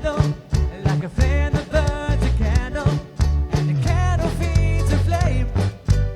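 Ukulele band playing a pop song: strummed ukuleles keeping a steady rhythm under a sung lead vocal, with low bass notes.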